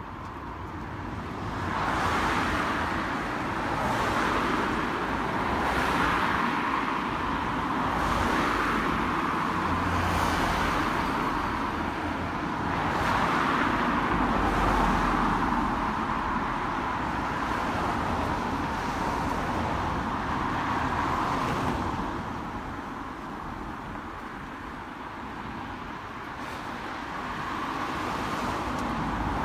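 Road traffic on a street, cars passing one after another in a steady stream, with a brief lull about three-quarters of the way through.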